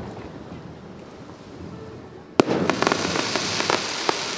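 Fireworks: a shell bursts with a sharp bang about two and a half seconds in. It is followed by a dense crackling of many small pops that runs on to the end.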